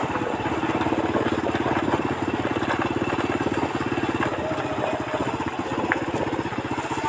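An engine idling nearby, a fast, even putter that holds steady.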